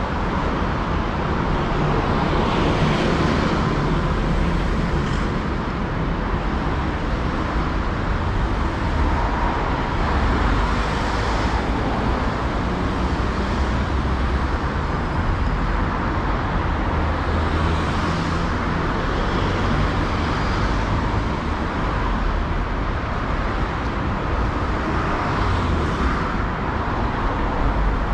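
Steady road traffic on a city street: a constant low rumble of engines and tyres, with vehicles swelling louder as they pass about every seven or eight seconds.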